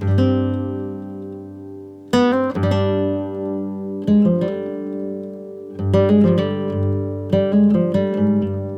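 Background music: acoustic guitar playing chords and picked notes, each one ringing out and fading.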